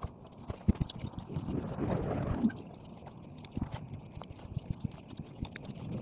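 Welded wire mesh panels on the ground being walked on and handled: scattered light knocks and metal rattles, busiest in the first half.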